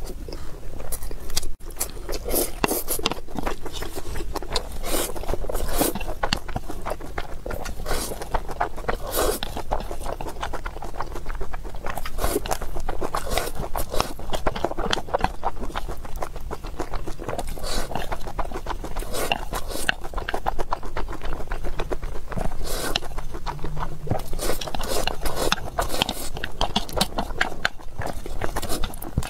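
Close-miked eating of fried rice: wet mouth smacking and chewing with many quick irregular clicks, with chopsticks scraping and tapping against the bowl as rice is shovelled in.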